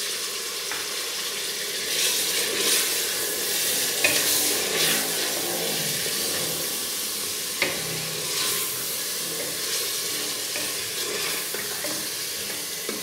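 Beef pieces sizzling in hot oil in an open aluminium pressure cooker as they are stirred with a wooden spoon, the hiss swelling with each stir. Twice, sharp knocks ring out. This is the meat being fried with ginger-garlic paste and turmeric until it changes colour.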